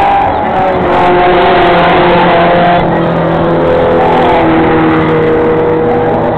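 Engines of off-road race cars running hard, loud and continuous, their pitch rising and falling as they accelerate and lift.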